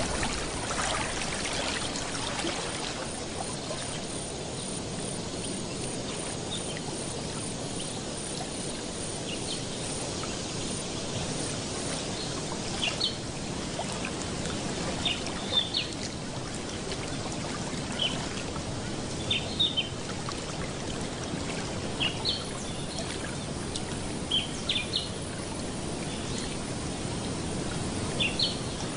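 Steady sound of moving water, with short, high bird chirps in small clusters from about twelve seconds in.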